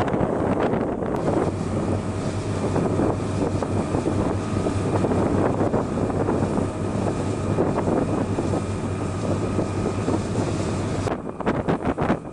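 Twin 270 hp Nanni marine diesel engines driving a 9.5 m motor launch at speed: a steady engine drone under rushing water and wind on the microphone. Near the end the drone drops away, leaving gusty wind buffeting and the hiss of the wake.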